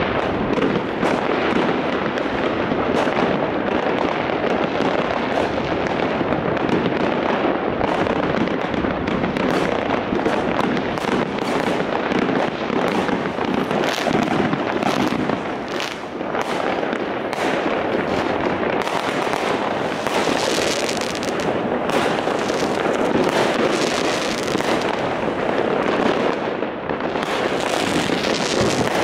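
Many fireworks and firecrackers going off at once: a continuous din of overlapping bangs and crackling with no pause.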